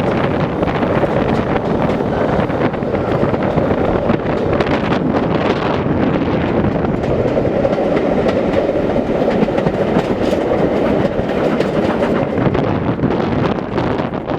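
The Jacobite steam train rolling steadily past, its wheels clicking on the rails in a continuous clickety-clack.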